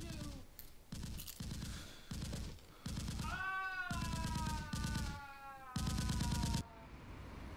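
Bursts of rapid automatic gunfire from an action film's soundtrack. Over the middle runs a long cry that falls slowly in pitch. Both cut off suddenly about a second before the end, leaving only a faint hiss.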